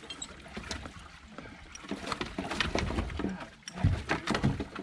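Water sloshing in a bass boat's livewell as a fish is pulled out by hand, with scattered knocks and clicks. A cluster of heavier thumps comes about four seconds in.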